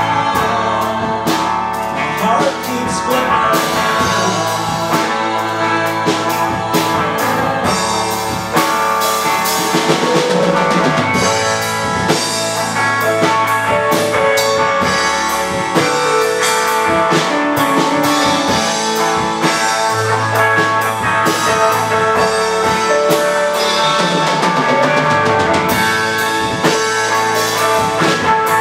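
Live rock band playing: a semi-hollow electric guitar and an electric keyboard over a drum kit, with steady drum beats throughout.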